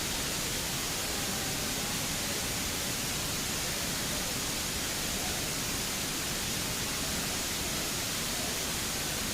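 Steady rushing noise of a waterfall, water pouring down onto rocks.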